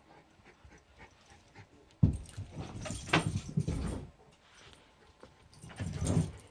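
A dog moving about looking for a thrown ball: bumps and scuffling that start suddenly about two seconds in and last a couple of seconds, with a shorter burst of the same near the end.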